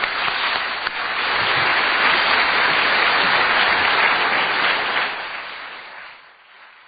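An audience applauding, building over the first couple of seconds and dying away near the end.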